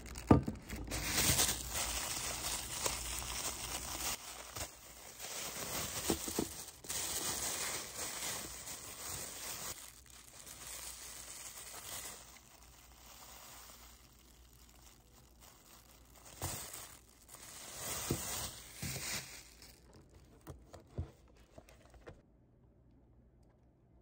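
Thin plastic bread bag crinkling and rustling in stretches as it is handled and opened, with a sharp knock just after the start and a few lighter knocks. It stops about 20 seconds in.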